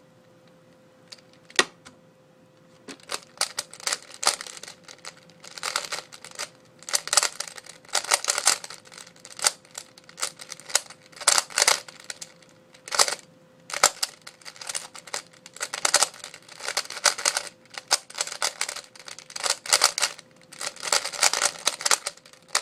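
A Type C-II 3x3 speed cube being turned fast in a timed speedsolve: irregular bursts of plastic clicking and clattering, with short pauses between groups of turns. There is a single sharp tap about a second and a half in and another right at the end.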